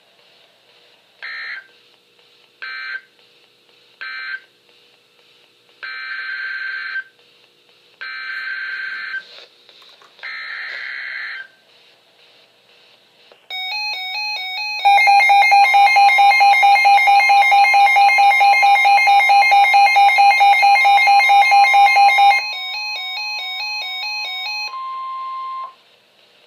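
NOAA Weather Radio alert signalling: three short end-of-message data bursts, then three longer screeching SAME header data bursts about a second apart for the next alert. After that comes the 1050 Hz warning alarm tone, a steady whistle lasting about ten seconds, with a louder pulsing electronic alarm layered over most of it.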